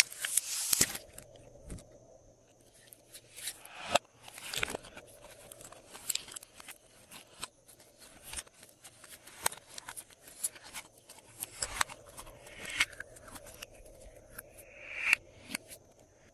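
Glossy slime being kneaded and pressed by hand, giving irregular sticky clicks and pops. They are densest and loudest right at the start, then scattered through the rest.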